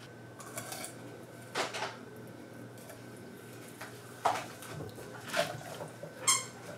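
A Chinese cleaver and a split rockfish knocking and scraping on a wooden cutting board: a few scattered soft knocks, and a short metallic ring from the blade near the end.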